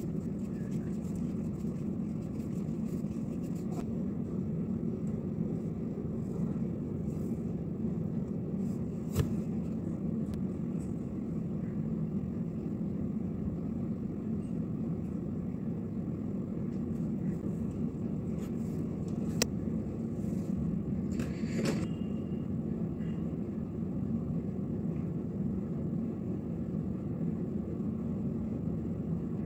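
Steady low background rumble, with a couple of sharp clicks about nine and nineteen seconds in and a brief rustle a little after twenty seconds, as makeup items are handled.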